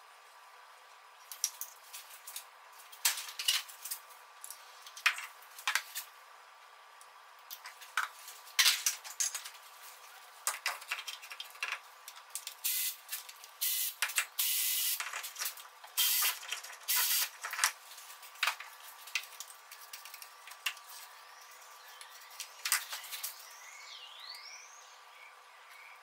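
Hand tools and metal engine parts clinking, clicking and knocking as the upper timing-chain cover is unbolted from an Audi 1.8 TFSI engine. A hiss lasting about two seconds comes midway, and a short squeak near the end.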